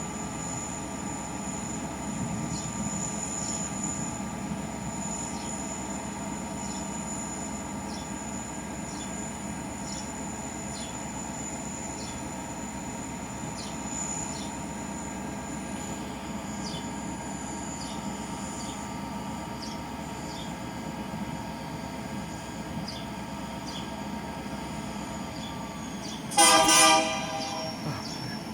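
A train rolling by with a steady rumble and faint, regular clicks. Near the end comes one short, loud blast, about a second long, of a Union Pacific locomotive's Nathan K3LA three-chime air horn.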